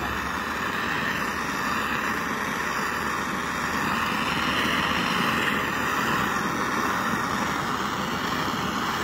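Handheld propane torch on a Coleman canister burning with a steady hiss, its flame heating a bearing carrier so it expands to take a chilled seal.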